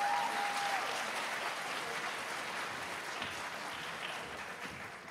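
Audience applauding in an auditorium, loudest at the start and slowly dying away, with one held high note over it in the first second.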